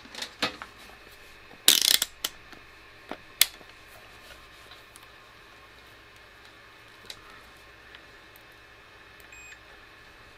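Workbench handling noises: a few sharp clicks and knocks and a short clatter about two seconds in, then quiet, and one faint short electronic beep near the end as a multimeter probe is brought to the board.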